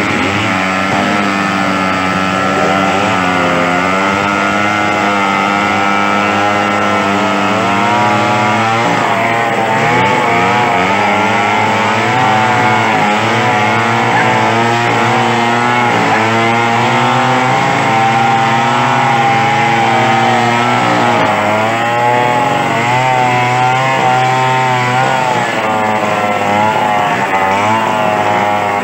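Stihl two-stroke chainsaw running loud and continuously while cutting an old mango limb into firewood rounds. Its engine note holds fairly steady for the first several seconds, then swings up and down in pitch as it works through the wood.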